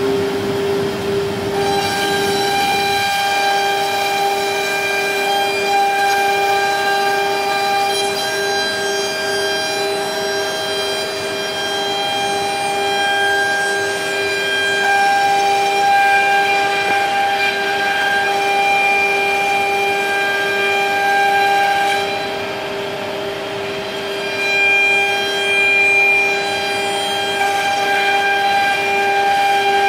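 High-speed spindle of a nesting CNC router running with a steady high-pitched whine, its higher overtones swelling and fading as it cuts through a wood panel.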